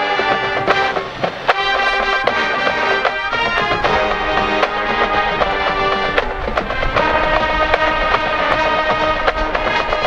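College marching band playing a hard rock arrangement: brass over drumline, with regular drum hits.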